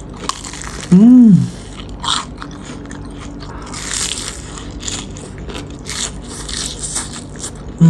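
Close-up eating sounds of a person biting into and chewing a breaded, fried risol with a creamy mentai-mayo filling: crackly crunches of the crust and wet chewing. About a second in, the eater lets out a short, loud "mmm" of approval.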